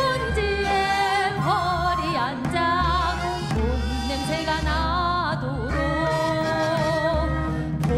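Korean traditional (gugak) singing with a wide, wavering vibrato and long held notes, over an instrumental accompaniment with a steady low bass.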